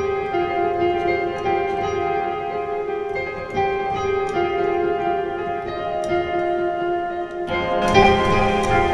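Electronic music from a synthesizer: a repeating line of held notes stepping between pitches. About three-quarters of the way through, a fuller layer with more low end comes in.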